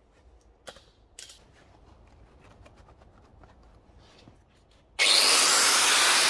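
A few faint handling clicks, then about five seconds in a power grinder starts abruptly and runs loud, its high whine rising quickly to a steady pitch. It is being used to cut off a rusted, rounded-off bolt.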